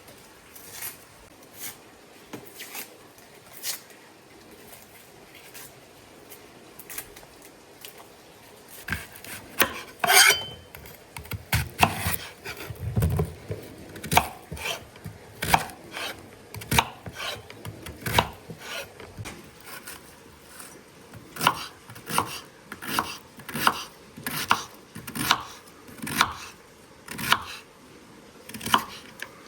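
Knife chopping on a wooden cutting board: a few light taps, then from about nine seconds in a run of sharp strokes that settles into a steady rhythm of about two a second.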